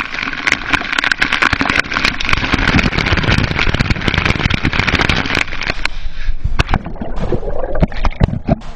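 Rushing water of a waterfall, a loud steady rush broken by many knocks and thumps on the microphone. The rush drops away suddenly about six seconds in, leaving mostly the knocks and a lower rumble.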